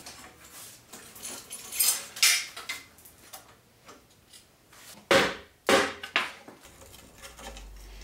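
Metal clinks, clicks and knocks of tools and bike parts handled while a mountain bike is stripped down to the frame. The louder knocks come about two seconds in and again around five to six seconds in.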